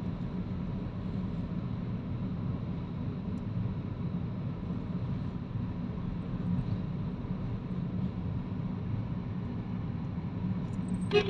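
Steady rumble of a car in motion heard from inside its cabin: engine and tyre noise with no sudden events.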